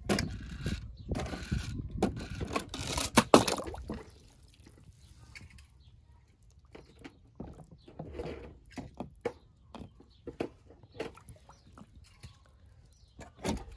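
Water splashing in a plastic tub as a small toy monster truck is pushed through it, busiest over the first four seconds, then fainter scattered splashes and drips.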